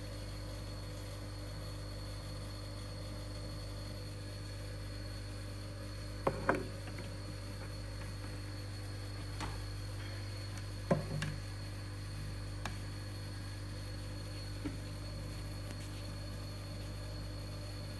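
Steady low mains-frequency hum with a faint high whine, broken by a few soft knocks and clicks: a pair about six seconds in and a sharper one about eleven seconds in.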